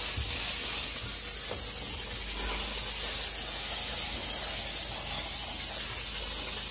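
Detailing steamer's nozzle hissing steadily as it jets steam onto a car's interior door panel.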